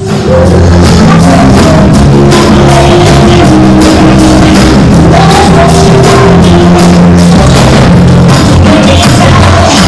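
A live band playing loud rock-style music with a drum kit and bass, cutting in abruptly at the start.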